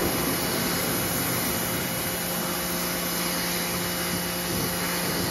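Pressure washer running, its water jet spraying steadily onto the rock of a drained pond, with a steady hum under the hiss.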